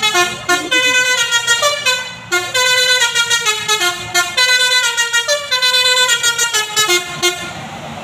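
Basuri V3 telolet multi-tone air horn on a tour bus playing a fast melody of short, stepping notes, with a brief break about two seconds in, stopping a little after seven seconds.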